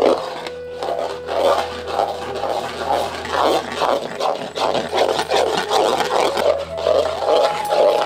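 A metal spatula scraping and stirring thick, reducing milk around a metal kadhai at about two strokes a second, as the milk thickens into khoya.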